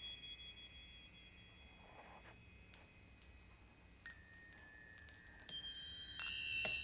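Film score of chime-like bell tones. A few high ringing notes are held and overlap, then more notes are struck in quick succession from about four seconds in, growing louder toward the end.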